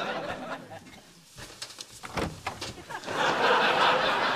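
Studio audience laughter that swells up about three seconds in and holds. A few soft knocks and bedding rustles come before it.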